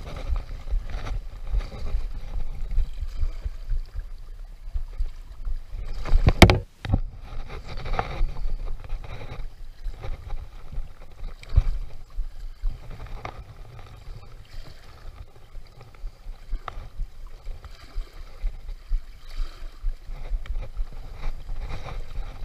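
Shallow seawater sloshing and splashing around a wading angler's legs, with wind rumbling on the microphone and scattered small clicks. One loud bump about six seconds in.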